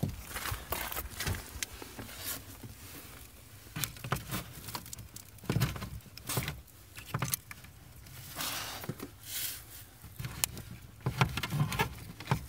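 Irregular rustling, clicks and light knocks of handling inside a car: clothing rustling and a hand brushing against the plastic trim and wiring under the dashboard.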